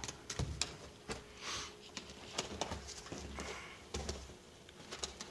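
A Doberman gnawing on a giant candy-cane rawhide chew: irregular clicks and knocks of teeth working the hard rawhide.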